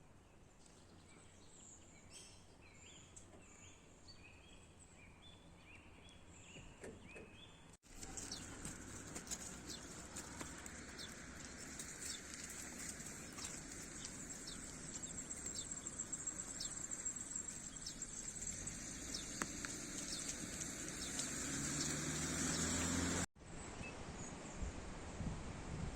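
Forest ambience with small birds chirping in short repeated calls. About eight seconds in it cuts to a louder, even rushing outdoor noise full of small clicks and ticks. This stretch grows louder until a second cut shortly before the end.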